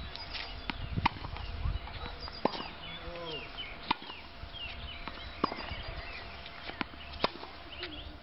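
Tennis ball being hit on a hard court: sharp single pops of the ball off the racket strings and off the court, about every one and a half seconds, with birds chirping in the background.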